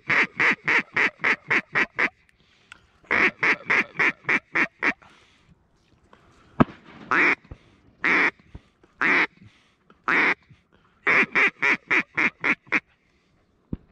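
Duck quacking in quick runs of about five quacks a second: a run of about ten, then one of about eight, then four single, longer quacks about a second apart, and a final run of about nine.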